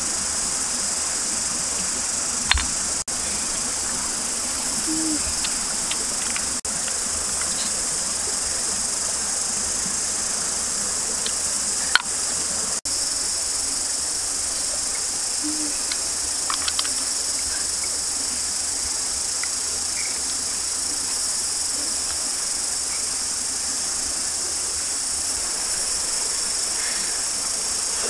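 Steady, high-pitched chorus of insects, with a couple of brief sharp clicks, one a few seconds in and one near the middle.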